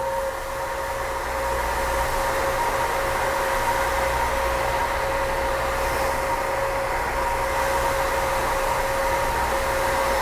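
Electric heat gun running steadily, a whirring motor and fan with a constant whine, blowing hot air to shrink heat-shrink tubing over a wire connector. It gets a little louder about a second in.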